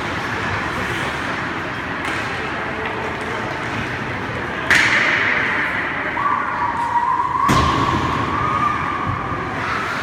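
Ice hockey rink noise with a steady wash of skating and spectators. About halfway through comes a loud thud, a hit against the boards and glass, then a second thud a few seconds later. A held tone lasts about two seconds in between.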